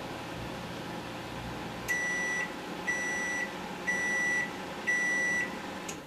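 Microwave oven running with a low hum, with a metal dinner fork inside that is not arcing. The hum cuts off about two seconds in as the timer runs out, followed by four long beeps about a second apart signalling the end of the cycle.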